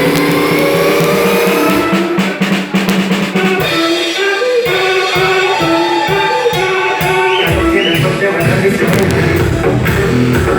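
Drum kit played live over an electronic dance backing track, with snare and bass drum hits. About two seconds in, the long held synth notes give way to short stepping notes and a busier run of drum strokes.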